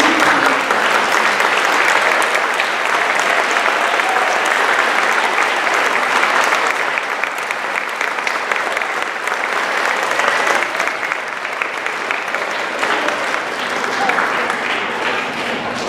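Large audience applauding steadily, the clapping easing off slightly toward the end.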